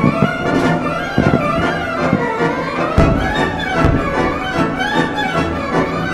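Orchestral music with strings and brass playing a flowing melody, broken by a few low booms from fireworks, the loudest about three and four seconds in.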